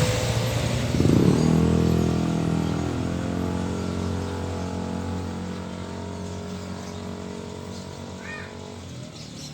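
A motor vehicle engine humming steadily and slowly fading away as it moves off, with a brief high chirp near the end.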